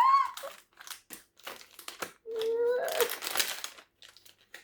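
Plastic snack wrappers crinkling as packages are handled, with a short rising vocal exclamation at the start. About two seconds in comes a held groan that ends in a breathy exhale.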